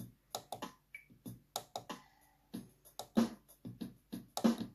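Built-in drum-machine rhythm of a Soundmy G-310W digital keyboard playing a 16-beat accompaniment pattern: a steady beat of short drum hits with a faint held note behind it.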